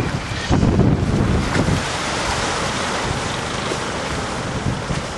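Wind buffeting the microphone: a steady rushing noise, with heavy gusty thumps in the first two seconds.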